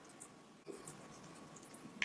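Faint, quiet eating sounds: a few small wet mouth clicks and one soft squish about two-thirds of a second in, between bites of sauced seafood and corn.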